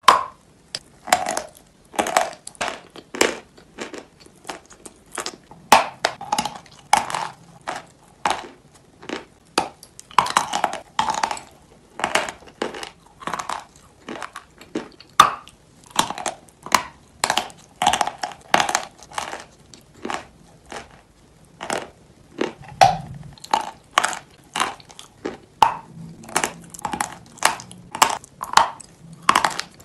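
Biting and chewing a block of chalk coated in paste: repeated sharp crunches, about two or three a second, with short pauses between bites.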